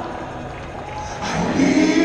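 Live worship music in a large hall, a crowd of voices singing along with the band; the sound thins out and dips for about a second, then the singing swells back louder.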